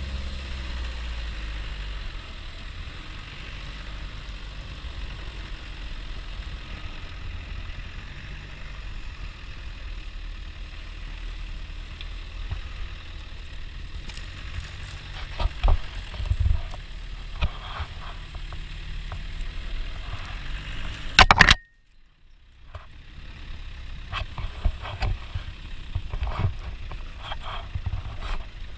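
Land Rover Defender 90 engine running steadily on a snowy trail, with scattered knocks and clunks from the vehicle over bumps. About three-quarters of the way through there is a brief loud burst, then the sound cuts out suddenly for about a second and comes back.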